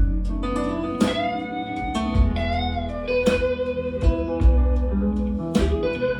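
A blues track playing back through KEF LS50 Meta bookshelf speakers. Guitar plays notes that slide and bend, over a steady bass line, with a drum hit about every two and a half seconds.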